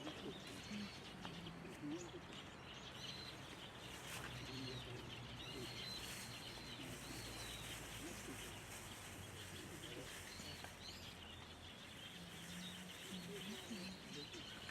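Faint wild bird chirps, a few short arching notes mostly in the middle stretch, over a steady low background hum.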